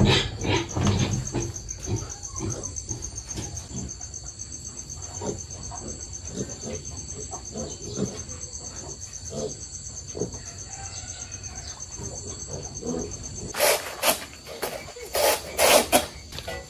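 Insects trilling: a steady, pulsing high-pitched trill, with short soft rustles of a piglet rooting in the dirt. A few loud noisy bursts come near the end.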